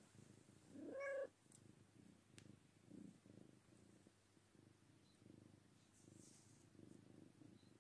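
A domestic cat gives one short, faint meow about a second in, over faint low purring.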